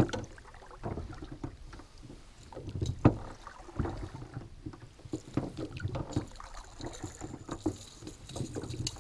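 Irregular knocks and thumps in a small aluminum jon boat as the anglers move and handle their gear, with one sharp, louder knock about three seconds in.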